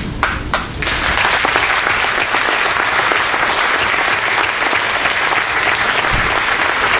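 Audience applause: a few scattered hand claps, then steady crowd clapping from about a second in.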